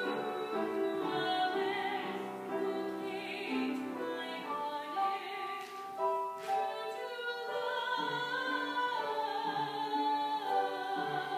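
Classical-style operatic singing over waltz music, with long held notes.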